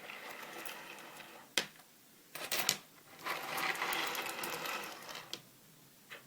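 A pile of loose coins being handled and shuffled: two stretches of rustling and scraping, the second louder, with a few sharp clinks between them.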